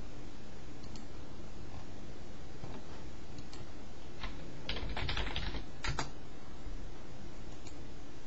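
Computer keyboard keys being typed: a quick run of keystrokes about five seconds in, with a few single key clicks before and after, over a steady background hiss.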